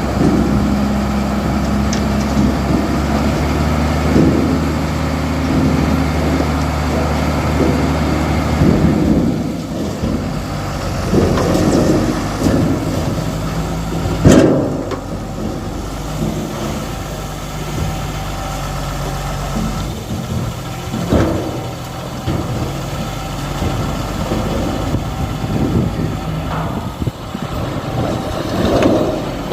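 JCB backhoe loader's diesel engine running steadily, its note changing about nine seconds in. A sharp knock about fourteen seconds in is the loudest sound, with a few smaller knocks around it.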